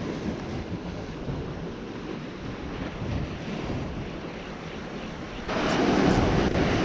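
Sea waves washing and breaking against shoreline rocks, with wind buffeting the microphone; the noise jumps up sharply and stays louder near the end.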